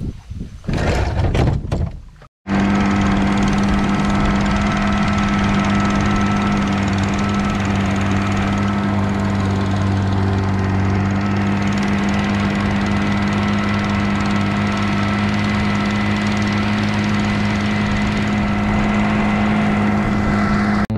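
Small outboard motor running steadily at a constant pitch, driving the boat along at speed. It comes after a short, rough, noisy stretch and a sudden cut about two seconds in.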